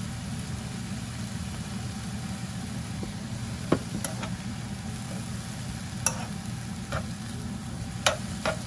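Shredded bellflower root being stir-fried in a nonstick wok, a metal spoon stirring and knocking against the pan about six times in the second half, over a steady low hum.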